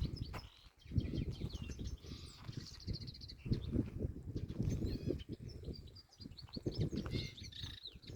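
Songbird chirping and trilling in quick high notes throughout, over an uneven low rumble that swells and fades.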